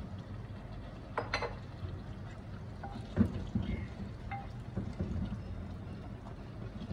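Raw beef pieces tipped from a glass bowl into a clay cooking pot and stirred with a spoon: a few sharp clinks and knocks of glass and spoon against the clay, the loudest about a second in and about three seconds in, over a steady low hum.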